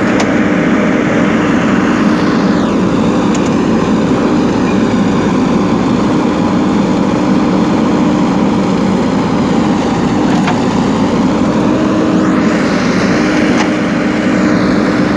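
JCB backhoe loader's diesel engine running steadily as it works, a constant hum with no break.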